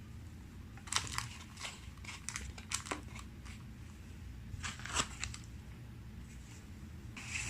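Plastic packaging crinkling and crackling as it is handled, in a few short bursts separated by quieter handling.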